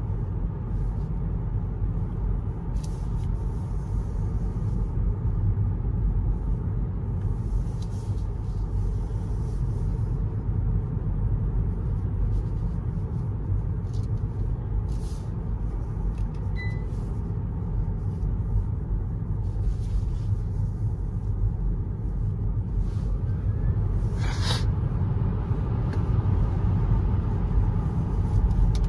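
Road and tyre noise of a Hyundai Ioniq 6 electric car being driven, heard from inside the cabin: a steady low rumble with no engine note. A few faint clicks are scattered through, and there is a brief sharper knock about 24 seconds in.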